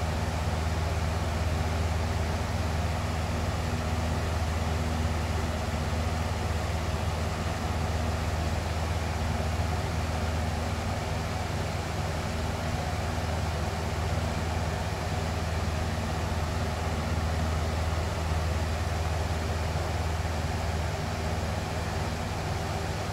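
Box fan running steadily: an even rushing of air with a low, constant hum underneath.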